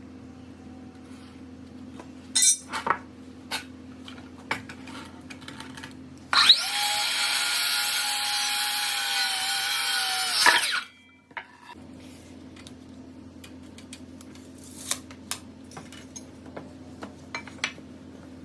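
A handheld power tool runs steadily for about four seconds and stops sharply. Light knocks and clicks of handling come before and after it.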